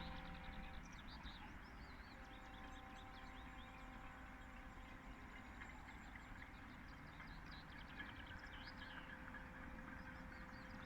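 Faint, distant din of a town clapping and banging for the NHS: rapid far-off clapping and clattering, a few high whistles, and a long held horn note that breaks off about a second in and sounds again a second later.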